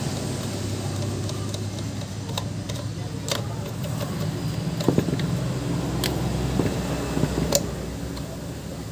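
A steady low mechanical hum with a few sharp metallic clicks and taps spread through it, like tools and parts being handled.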